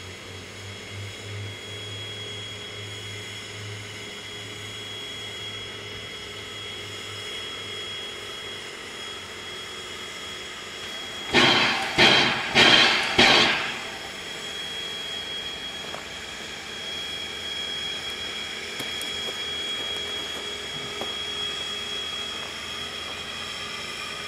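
Standing W-class 4-8-2 steam locomotive W934 with steam up, giving off a steady hiss with a faint whine. About halfway through come four loud, short bursts of hiss, roughly half a second apart.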